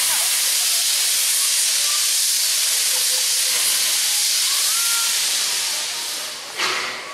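NGG16 Garratt steam locomotive No. 129 letting off steam in a loud, continuous hiss that eases off near the end, followed by a short, sharp burst.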